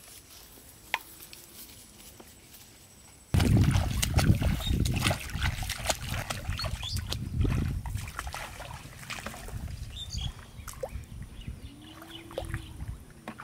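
Bare feet wading through the shallow water of a flooded rice paddy: splashing, sloshing steps that start suddenly about three seconds in, loudest over the next few seconds, then softer sloshing and rustling.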